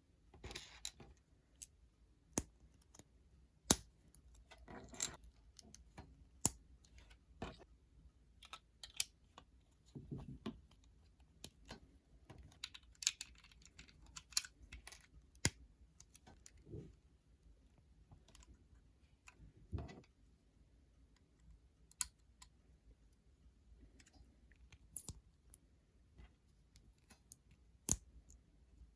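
Plastic Lego pieces being handled and pressed together: irregular sharp clicks and snaps, a few louder than the rest, with brief rustles of parts being moved between them.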